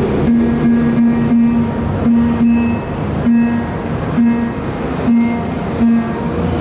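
Solo acoustic guitar playing a slow instrumental passage, one note recurring again and again among plucked strings.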